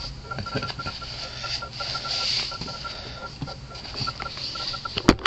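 Camera being handled: a few sharp knocks near the end, over a steady hiss and a faint, fast, even ticking tone.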